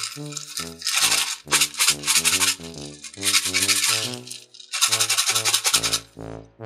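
Bouncy instrumental background music: short stepping notes over a low bass line, with bright hissy, rattling stretches running through it.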